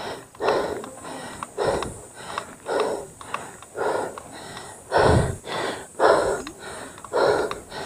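A cyclist breathing hard and rhythmically while pedalling up a steep climb, quick breaths in and out about two a second.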